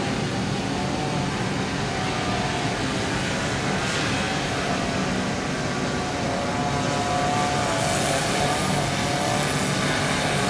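Multirotor drone propellers humming steadily, with a hiss that grows louder near the end.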